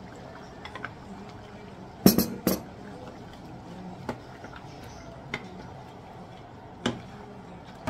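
Cubed potatoes scraped from a bowl with a wooden spoon and dropped into a pot, with a loud clatter of knocks about two seconds in. A wooden spoon then stirs the pot, giving a few separate knocks against its side.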